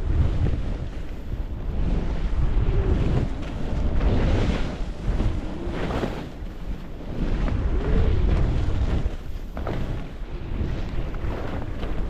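Wind rushing over the microphone of a downhill skier, with skis scraping and hissing on packed snow that swells with each turn, every second or two.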